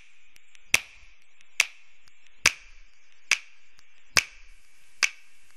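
Six sharp clicks, evenly spaced a little under a second apart, over a faint steady hiss.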